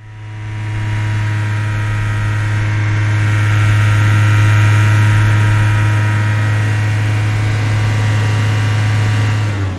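Car engine running at a steady speed, one even low hum that does not rise or fall in pitch. It fades in over the first second and stops just before the end.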